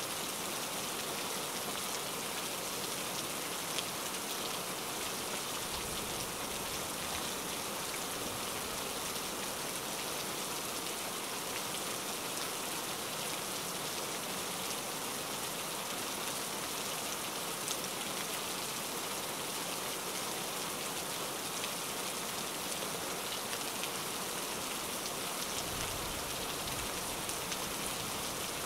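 Steady rain falling, a rain ambience recording, with two brief low rumbles about six seconds in and near the end.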